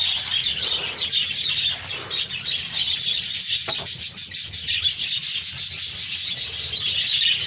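A flock of caged birds chirping continuously, many calls overlapping in a dense chatter.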